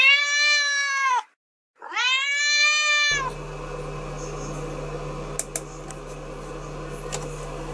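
Domestic cat meowing twice, two long drawn-out meows with a short pause between them. Then a steady low hum with a few faint clicks.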